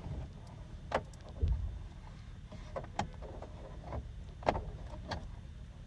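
Several separate light clicks and taps of plastic wiring connectors and the climate control module being handled while they are fitted back into the dashboard, over a faint low rumble.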